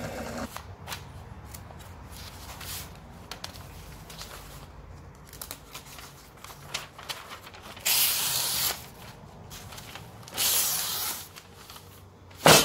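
A freshly sharpened Husqvarna carpenter's axe slicing through catalog pages in a paper test of its edge: soft paper rustling, then two crisp slicing swishes about two and a half seconds apart. A sharp knock comes near the end.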